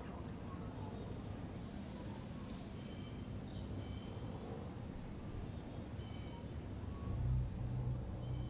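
Outdoor park ambience: small birds chirping now and then over a steady low rumble. About seven seconds in, a louder deep hum comes in and carries on.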